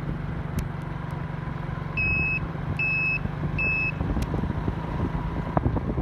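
Motorcycle engine running steadily while riding. About two seconds in there are three short, high electronic beeps, evenly spaced a little under a second apart.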